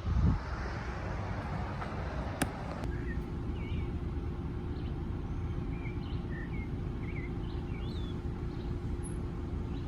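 Wild birds chirping in short, twisting notes, starting about three seconds in, over a steady low background rumble.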